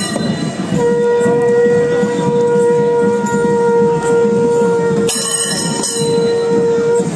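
A single long blown note, held steady in pitch for about six seconds, from a wind instrument such as a procession horn. It stands over crowd noise, with short bursts of high metallic ringing near the start and again about five seconds in.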